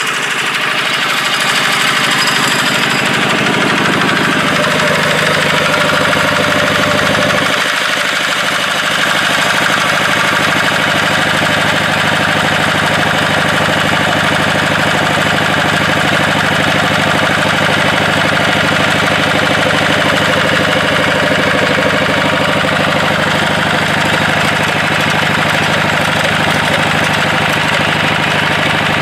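Engine of an irrigation water pump running steadily.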